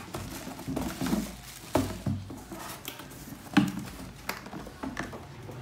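Cardboard box and plastic packaging being handled while an air fryer is unboxed: plastic rustling with a few sharp knocks of cardboard, the loudest about three and a half seconds in.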